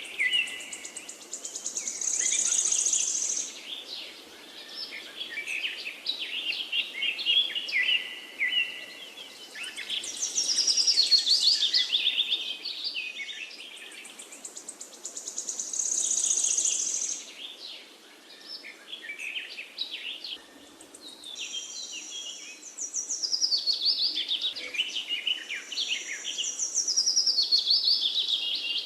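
Songbirds singing, with quick trilled and chirping phrases one to two seconds long that recur every few seconds. A faint steady hiss runs beneath them.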